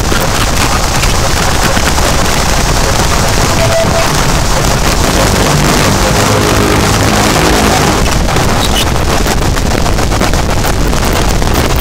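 Harsh noise music made with electronics: a loud, unbroken wall of distorted static and roar. A low buzzing pitched tone surfaces under it for a couple of seconds in the middle.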